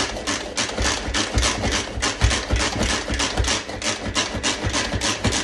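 Pampered Chef manual food processor worked fast by hand, its blades chopping quartered onion: a rapid, even clatter of strokes, about five a second.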